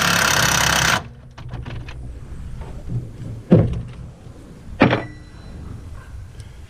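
Impact wrench hammering, stopping abruptly about a second in. Then a few light clicks and two sharp knocks about a second and a half apart.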